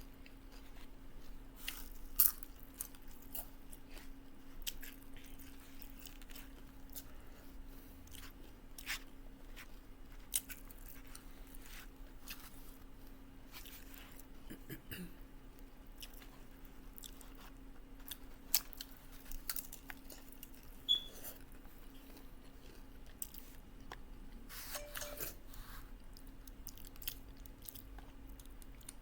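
Close-up chewing and crunching of taco salad with tortilla chips: irregular sharp crunches of bites and chewing, over a faint steady low hum.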